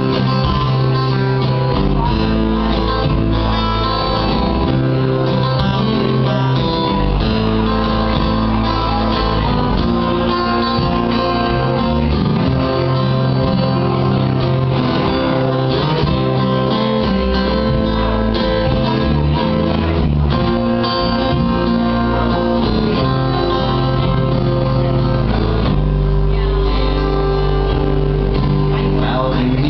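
Live guitar band playing: acoustic guitars strummed over an electric guitar, with a steady low line that shifts every second or two.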